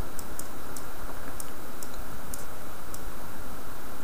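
Scattered light clicks from a computer keyboard and mouse, about seven spread irregularly, over a steady background hiss.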